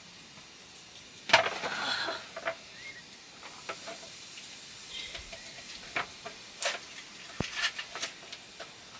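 Knife clicking and scraping on a wooden cutting board in scattered light strokes, with a louder clatter about a second in.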